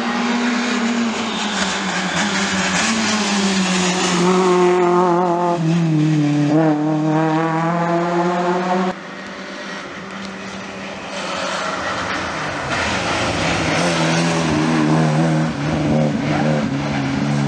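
Rally car engines driven hard through a tight bend. One engine drops in pitch going into the corner, then climbs steeply as it accelerates out. The sound cuts off abruptly about nine seconds in, and a second car's engine then builds up and revs through the bend near the end.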